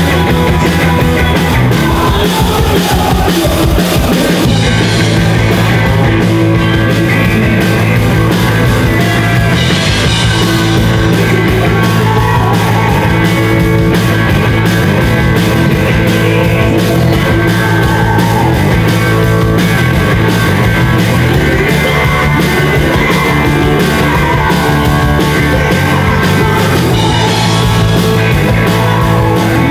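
A rock band playing live, with electric guitar and a drum kit under a woman singing lead into a microphone.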